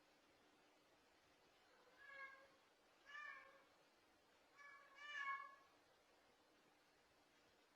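A cat meowing faintly three times: two short meows about a second apart, then a longer one about two seconds later.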